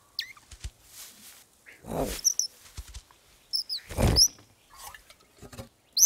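Cartoon voice of a small animated bird: short high squeaks and chirps, with small clicks near the start and two louder squeaky vocal sounds about two and four seconds in.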